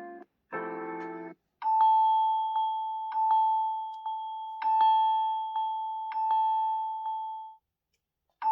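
Samsung Galaxy A54 ringtone: a bell-like chime on one high note, struck again and again, each strike ringing out, for about six seconds after a brief chord. It stops, and the next ringtone's first note sounds just at the end.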